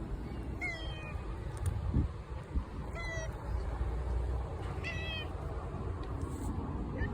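Stray cats meowing: three calls about two seconds apart, over steady low background noise.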